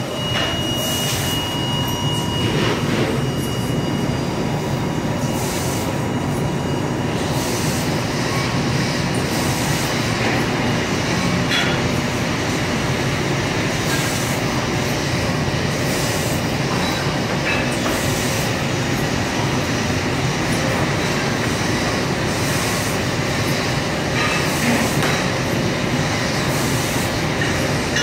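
Fiber laser cutting machine running as it cuts thin 24 gauge stainless steel sheet: a loud, steady mechanical rush, with short bursts of hiss coming and going every second or two.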